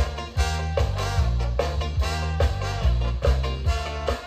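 Live swing-jazz band playing: brass lines over a walking upright double bass, drums and guitar, with a steady, even beat.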